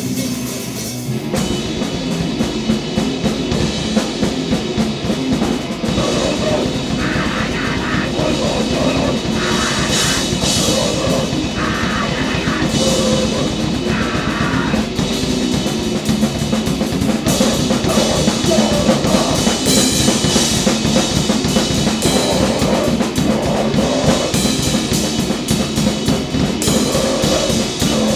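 Grindcore noise band playing loud and fast: rapid, dense drum-kit hits under distorted guitar and bass, the full band coming in about a second in.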